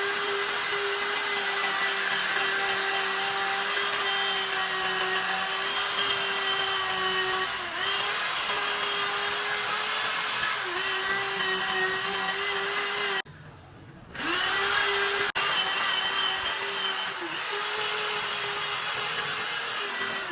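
Electric power-tool motor running at a steady high whine, its pitch sagging briefly a few times as it is loaded. It is switched off about two-thirds of the way through and spins back up about a second later.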